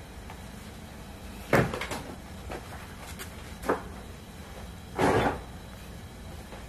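A few hard knocks and clatters: a loud one about one and a half seconds in with smaller ones just after, a lighter knock in the middle, and a longer clatter about five seconds in.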